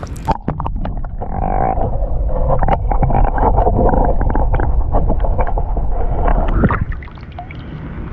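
Paddle board on the water: sloshing and splashing with scattered knocks over a low wind rumble on the microphone. It swells about a second in and drops off near seven seconds.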